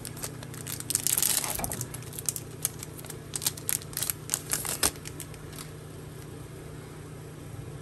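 Foil trading-card pack being torn open and crinkled, with a burst of tearing about a second in, then scattered crackles and clicks as the cards are worked out. The crinkling stops a little past halfway, leaving a low steady hum.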